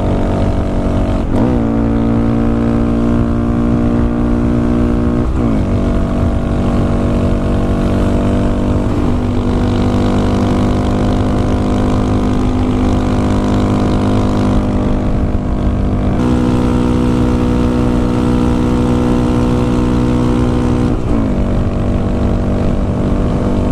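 Honda Grom's small single-cylinder engine through an aftermarket Yoshimura exhaust, running at a steady cruise on the open road. The engine note holds steady for long stretches, with a brief sharp swing in pitch about a second in, again around five seconds in, and near the end. Wind noise on the helmet-mounted microphone runs underneath.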